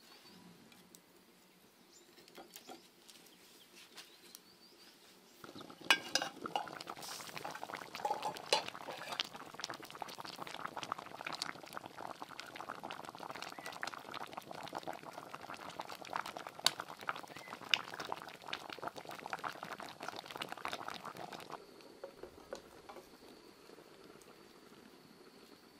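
A pot of water with bamboo shoots at a rolling boil, bubbling and crackling steadily, with a stick stirring through it. It starts about five seconds in, after a few faint clicks, and drops away near the end.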